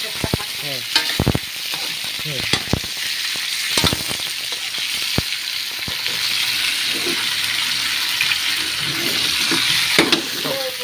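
Chicken pieces sautéing with garlic, onion and ginger, sizzling steadily in a wok. A spatula scrapes and knocks against the pan several times in the first four seconds and once more near the end.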